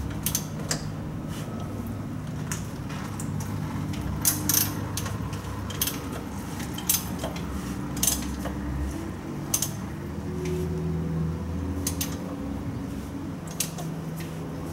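Scattered metal clinks and clicks of a wrench turning the crankshaft of a Mitsubishi 4G63 four-cylinder engine by hand, the pistons rising and falling in bores full of penetrating oil: the seized engine is now freeing up after soaking. A low steady hum runs underneath.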